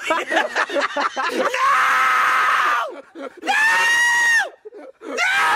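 A man screaming: a long scream of over a second begins about a second and a half in, a second, higher-pitched scream follows about three and a half seconds in, and a third starts near the end. Quick excited talk comes before the first scream.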